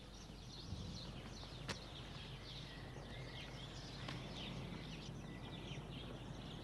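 Faint birdsong: many short chirps from several small birds, over a steady low hum and hiss, with one sharp click a little under two seconds in.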